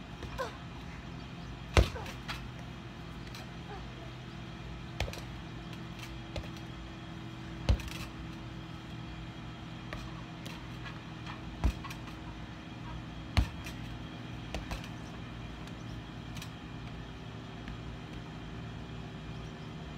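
Tetherball being hit back and forth: about five sharp thumps at irregular intervals of a few seconds, over a steady low hum.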